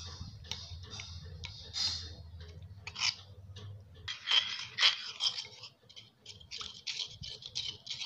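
Spoon stirring and scraping a thick maida and cornflour paste against a ceramic bowl in quick, uneven strokes, beating it smooth into a lump-free coating batter. A low hum runs underneath and stops about halfway.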